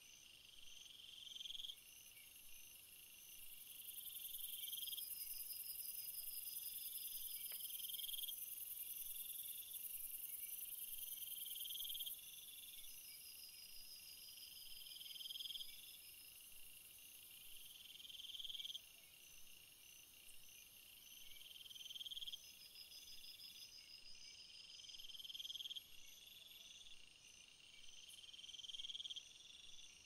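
Crickets chirping in repeated trills, each swelling for about a second and a half and recurring roughly every two seconds, over a faint, steady, very high insect hiss.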